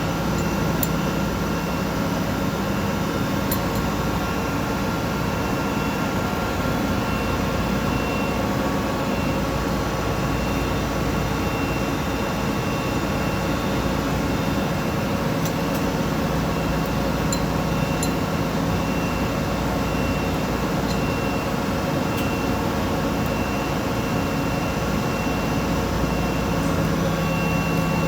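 Industrial machine running steadily: a constant hum with a faint high tone that pulses on and off about once a second.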